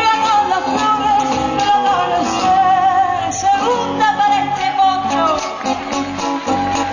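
Argentine folk music with singing: a long-held, slightly wavering melody line over a full accompaniment.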